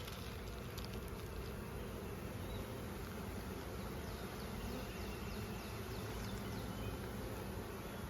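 Honey bees buzzing in a steady, dense hum.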